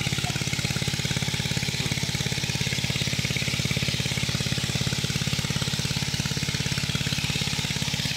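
Small engine, most likely the pond's dewatering pump, running steadily at an even idle with a fast, regular chugging beat.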